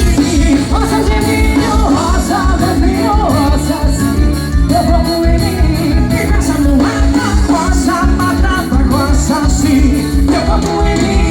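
Forró band music with a steady, fast beat and a wavering melody line over it.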